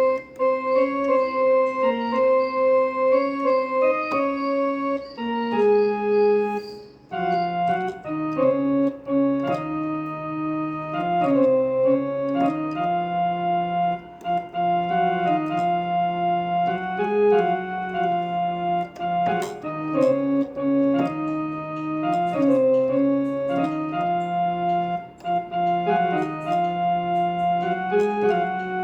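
Casio electronic keyboard on its harmonium voice playing a melody of held, reedy notes. There is a short break about seven seconds in, after which the melody moves to a lower register.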